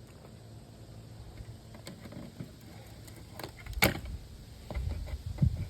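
Handling noises from scrapping an old television set while wires are pulled out: a few clicks, one sharp knock about four seconds in, then low rumbling and knocks near the end.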